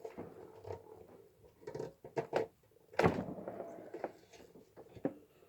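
Scattered knocks and clicks of tools and parts being handled at a workbench, the loudest a sharp thunk about three seconds in.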